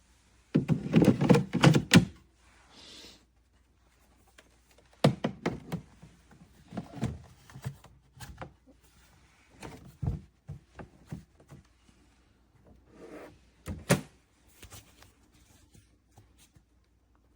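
Irregular thuds, knocks and rubbing of hard objects being handled, in bursts with short quiet gaps; the loudest group comes about half a second to two seconds in.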